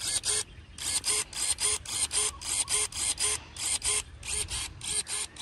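Cordless 21 V electric pruning shears working their blades open and shut in the air, over and over: quick bursts of motor whir and blade snap, about four a second, with a short pause about half a second in.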